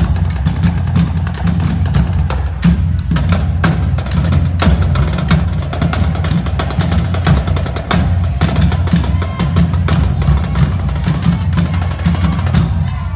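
Marching drumline playing a drum cadence: snare drums with fast, dense sticking and rolls over marching bass drums.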